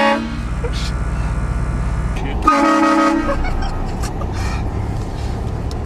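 Hornblasters 228VX air train horn sounding a multi-note chord: the end of one blast cuts off just after the start, and a second short blast of under a second comes about two and a half seconds in. Between the blasts a car engine runs with a low, steady rumble.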